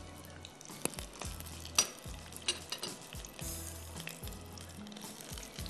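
Batter-coated chicken pieces deep-frying in hot oil in a wok, sizzling steadily, with a few sharp clicks scattered through. Soft background music with a repeating bass line runs underneath.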